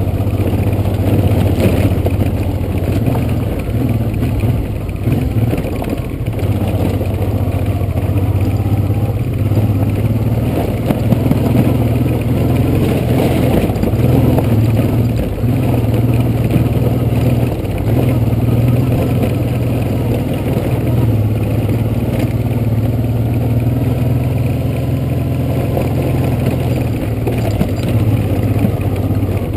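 Honda Transalp's V-twin engine running at low, slightly varying revs while the motorcycle is ridden over a rough, rocky track.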